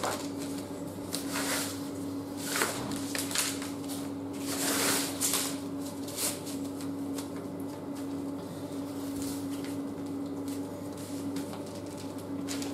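Handling noise from assembling a collapsible camp cot: its fabric bed rustling and its poles and plastic leg clips clicking and knocking as they are fitted, with a longer rustle about five seconds in. A steady low hum runs underneath.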